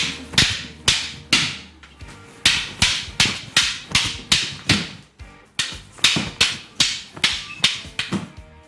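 Arnis sticks clacking together in a quick drill of strikes and blocks, about two sharp knocks a second, with brief pauses about two and five seconds in.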